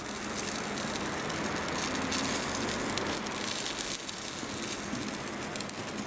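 Beef rib steak sizzling on the cast-iron grate of a charcoal kamado grill, its dripping fat flaring on the hot coals: a steady hiss with fine crackles.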